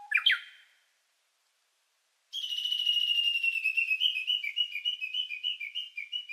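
A short rising whistle glide, then after a second or so of silence a high, bird-like whistled warble that steps quickly up and down in pitch.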